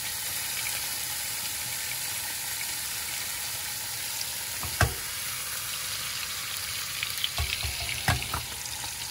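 Beef steaks frying in butter in a non-stick pan, a steady sizzle. A few sharp knocks sound over it, once about five seconds in and a few times around seven to eight seconds in.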